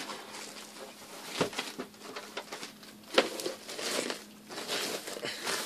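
Clear plastic wrapping bag rustling and crinkling as it is pulled off a new LCD monitor, with a sharp click about a second and a half in and a louder one about three seconds in.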